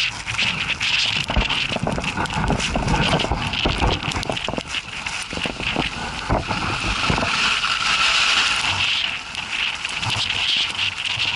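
Strong gusting wind buffeting the camera microphone with irregular low rumbles, over a steady hiss.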